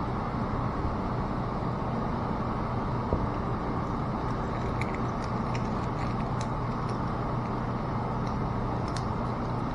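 Steady low background machinery hum, with a few faint light clicks of small parts being handled.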